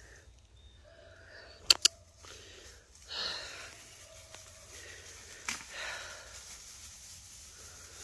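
Soft rustling in dry leaf litter on a woodland floor, with two sharp clicks close together a little under two seconds in.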